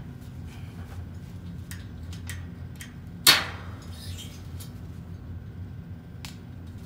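Locking welding C-clamp being handled and snapped onto steel plates on a steel welding table: a few light metal clicks and one loud metallic clank about three seconds in, over a low steady hum.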